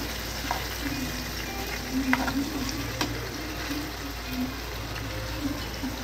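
Masala-coated chicken leg pieces sizzling steadily in shallow oil in a nonstick pan. A spoon turns them over, with a few short clicks and scrapes against the pan.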